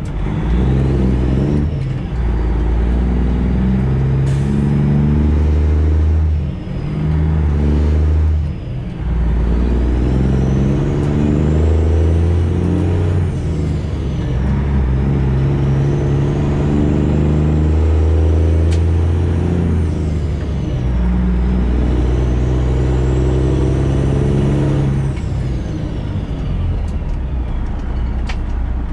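Straight-piped Freightliner Classic XL semi-truck engine pulling up through the gears of a manual transmission. The exhaust note rises in pitch with each pull and drops back at each of several gear changes, with a faint high whistle rising and falling along with it.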